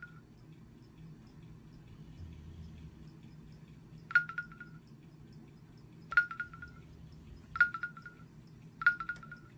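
Samsung Juke cell phone keys pressed four times while scrolling through menu items, each press a sharp click followed by a short electronic beep. The first comes about four seconds in, the rest every second or two.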